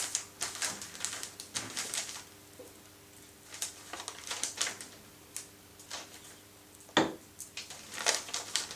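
Kraft paper being folded and pressed by hand on a table, with crisp crinkling rustles and small taps, and one sharper knock about seven seconds in that is the loudest sound.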